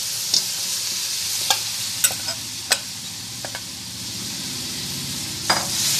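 Steady sizzle of a little water heating in a steel pan, with about half a dozen sharp clicks and knocks as lumps of chopped jaggery are tipped in and land on the metal.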